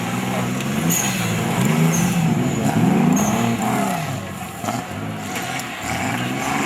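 Off-road 4x4's engine revving over and over, its pitch rising and falling in a string of quick throttle blips.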